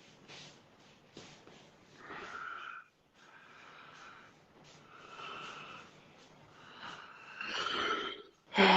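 A man with a head cold sniffling and clearing his congested nose and throat: a series of short, noisy, breathy snorts and sniffs, the loudest near the end.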